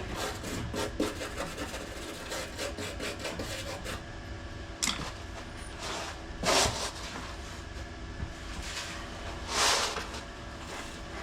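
MIG welder arcing on thin sill steel: a dense, rapid crackle for about four seconds, then three short, louder bursts of welding spaced a second or more apart, as the thin metal is stitched in short runs.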